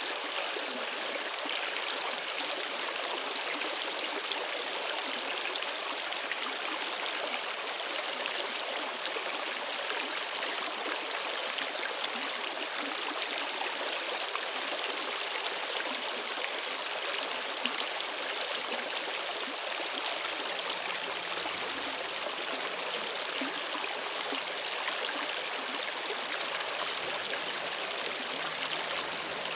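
Running water: a steady, even rushing with no breaks.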